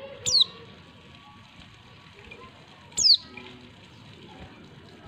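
Female white-eye (pleci) giving short, sharp call notes that fall steeply in pitch. There are two about three seconds apart, and a third begins right at the end, over faint soft twittering.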